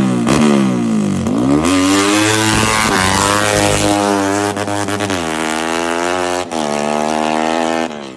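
Yamaha Y15ZR motorcycle's single-cylinder engine revving: quick throttle blips in the first second, then held at high revs with two brief dips in pitch, and cutting off just before the end.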